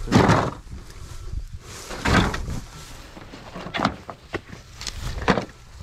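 Sheets of roofing tin being lifted and shifted off a cover stack: four short, noisy metal clatters, roughly a second and a half apart.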